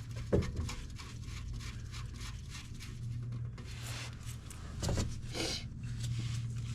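Light clicks and scrapes of an oil drain plug with its crush washer being refitted and tightened, with a sharp knock about a third of a second in, over a steady low hum.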